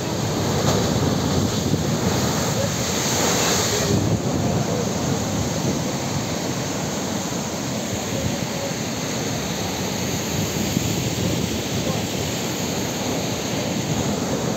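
Heavy sea surf breaking and churning against rocks, a continuous rush of water, with a louder hissing surge about three seconds in.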